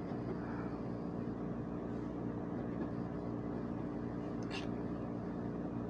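Steady low hum of room background noise made of several fixed low tones, with a single short tick about four and a half seconds in.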